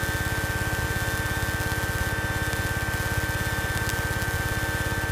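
Light aircraft's piston engine idling on the ground, heard from inside the cabin as a steady, rapid even throb, with a steady high-pitched whine running alongside.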